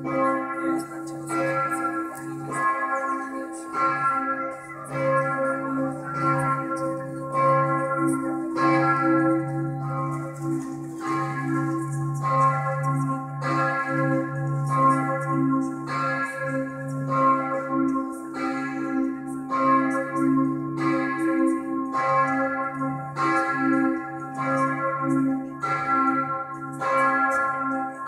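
Several church bells of St. Emmeram's Cathedral swinging together in a continuous peal, ringing out six o'clock in the evening. The strokes come a little under a second apart, and a deep low bell hums underneath throughout.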